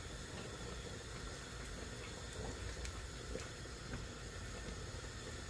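Faint, steady bubbling of a pot of soup simmering on the stove, with a few soft clicks as tomato puree is spooned from a can.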